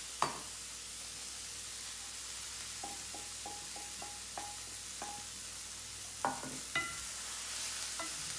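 Cabbage and vegetables sizzling steadily in a stainless steel skillet while they are stirred. Midway comes a run of about seven light metallic pings, about three a second, as bean sprouts are knocked out of a steel bowl into the pan; two louder ringing clanks of metal follow near the end.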